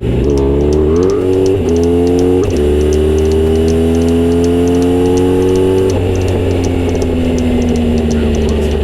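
Kawasaki Z900RS inline-four motorcycle engine running through a Misty Kintaro short-pipe exhaust with a 70 mm silencer while being ridden. The engine note breaks and picks up several times in the first two and a half seconds, then climbs steadily, and drops back about six seconds in.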